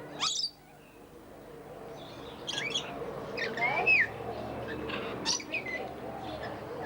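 Caged aviary birds calling: scattered short chirps and squawks, with a sharp rising call near the start and the loudest call, a curved squawk, about four seconds in.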